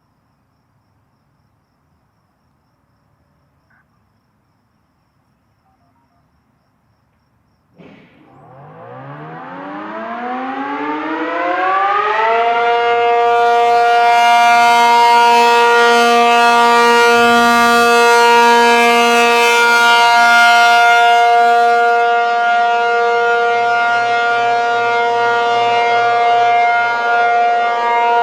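American Signal T-135 outdoor warning siren starting up: it is near silent until about eight seconds in, then the siren cuts in and winds up, its chord of tones rising for about four seconds before settling into a loud, steady multi-tone wail. This is the steady Full Alert signal of a siren test.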